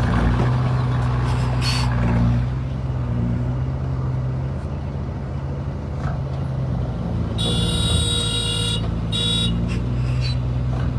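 Engine of heavy earthmoving machinery running steadily at a low hum. About seven seconds in, a high-pitched squeal lasts just over a second, then comes again briefly.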